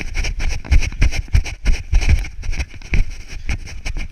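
Wind buffeting and rubbing on a body-worn action camera's microphone as the wearer runs across grass, with irregular thumps from footfalls and jostling of the camera.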